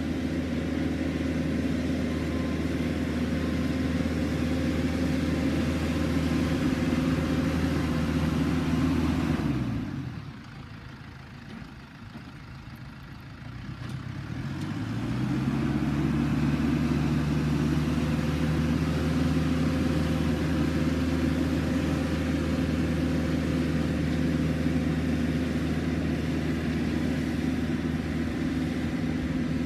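Case tractor's diesel engine running steadily under work. About ten seconds in the revs drop away, and a few seconds later they climb back up and hold steady.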